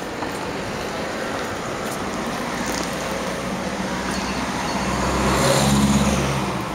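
Street traffic noise with a vehicle engine running at a low, steady hum. The hum grows louder over a few seconds, then stops abruptly near the end.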